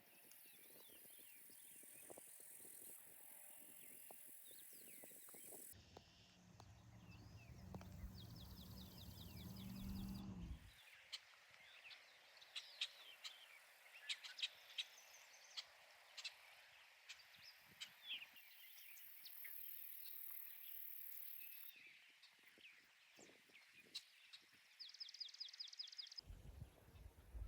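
Summer woodland ambience: several birds singing and calling, with two short trills of fast repeated notes. A steady high insect buzz runs at the start and again for a few seconds past the middle, and a low rumble is heard for a few seconds about a quarter of the way through.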